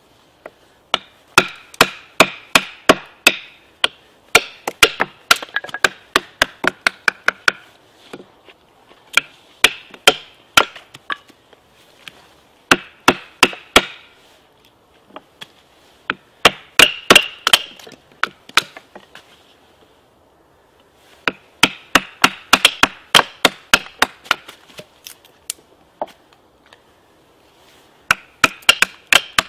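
Two bushcraft knives being batoned through short lengths of wood: wooden batons striking the knife spines in quick runs of sharp knocks, several a second, with short pauses between runs as the wood splits apart.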